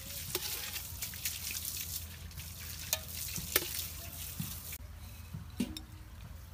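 Sizzling crackle with scattered sharp clicks, as of cooking, that cuts off suddenly about five seconds in, leaving a faint low hum and a few clicks.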